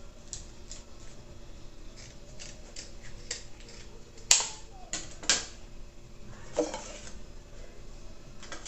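Kitchen utensils and containers being handled on a counter: light taps and clicks, two sharp knocks about a second apart midway, and a short scrape or rustle shortly after.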